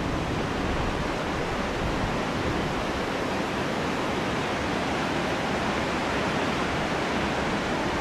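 Steady rushing of river water, an even continuous hiss with no rises or breaks.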